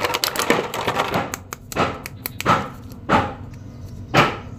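Clear plastic bag crinkling as a plastic action figure is taken out of it. A quick run of crackles for about two seconds, then three separate crinkles.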